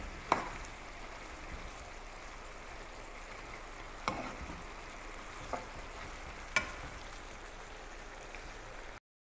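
Chicken balls and sliced cucumber sizzling and bubbling in sauce in a pan, a steady hiss. A spatula stirs them, knocking against the pan four times.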